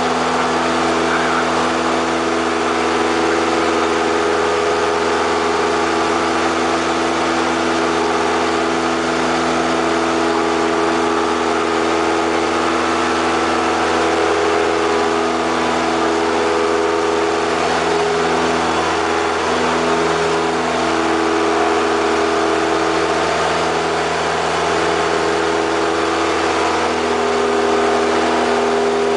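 Single-engine propeller airplane's piston engine and propeller running steadily, heard inside the cockpit as an even drone with a faint rushing of air.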